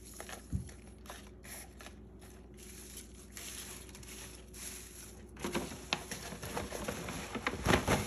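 Leaves, flower stems and paper rustling and crinkling as plant cuttings are pulled from a pile and laid onto a sheet of paper, with small taps and knocks in the second half, the loudest near the end.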